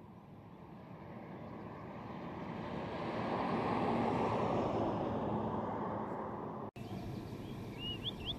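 A vehicle passing, its noise swelling to a peak about four seconds in and then fading; the sound cuts off suddenly, and a bird chirps a few quick rising notes near the end.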